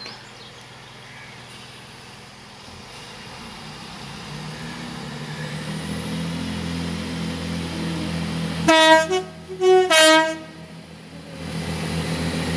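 Class 165 Turbo diesel multiple unit approaching, its engines building up, then sounding its horn about nine seconds in as a quick run of notes that change in pitch, the 'five-tone' horn pattern, lasting just under two seconds. The train's running noise then swells as it draws up.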